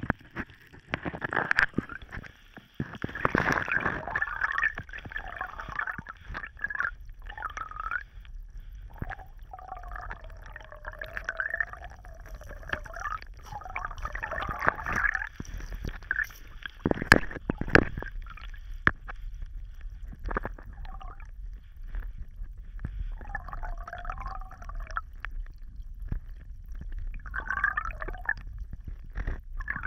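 Water gurgling and dripping in irregular bubbly bursts, with a few sharp clicks, the loudest a little past halfway, over a low steady rumble.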